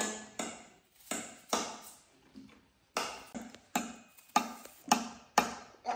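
Kitchen knife paring the skin off a raw jicama: a run of short scraping strokes, about two a second, each fading quickly.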